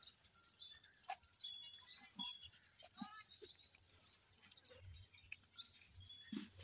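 Faint birds chirping, with a few soft knocks.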